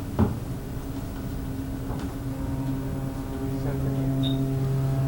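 Cruise ship's horn sounding a long, steady low blast as a departure salute to another ship, deepening and growing a little louder about two seconds in. A short knock comes just after the start.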